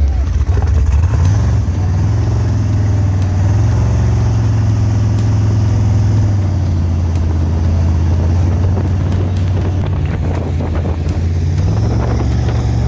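Jet boat's 5.3-litre LS V8 running hard under load at speed, its note rising a little about two seconds in and easing back around six seconds, with water rushing and spraying past the hull.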